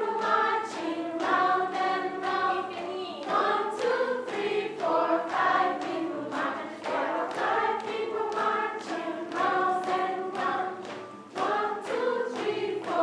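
A group of adults singing a song together, clapping along to the beat.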